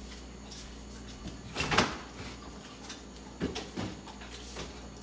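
Refrigerator door being opened and items moved inside it: a clunk a little under two seconds in, then two softer knocks, over a low steady hum.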